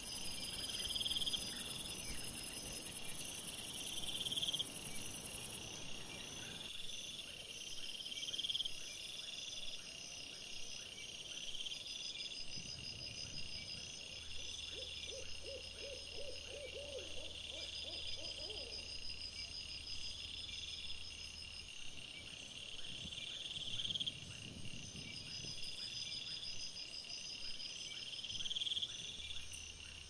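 Night ambience picked up by a trail camera and played sped up fourfold: repeating high chirps in an even rhythm throughout, with a short rapid trill about halfway through and sudden shifts in the background where clips are joined.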